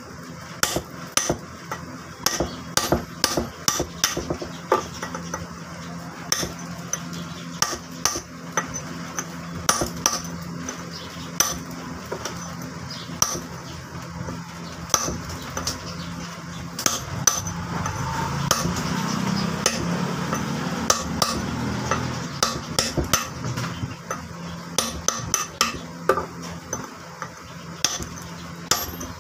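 Hammer striking a steel chisel to dress the grooves of a flour-mill (atta chakki) millstone: sharp metallic taps in irregular runs. A steady low hum runs underneath and swells for a few seconds past the middle, when the taps thin out.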